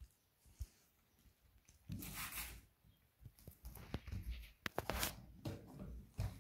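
Cardboard box rustling and scraping as a puppy and a kitten scramble and mouth at it: a scratchy rustle about two seconds in, then a run of light clicks and scrapes, loudest about five seconds in.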